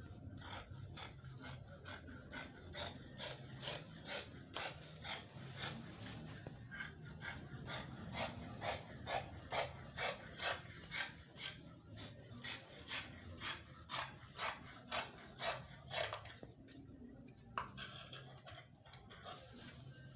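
Fabric scissors snipping through lining cloth in a steady run of cuts, about two a second, pausing briefly about sixteen seconds in before the snipping starts again.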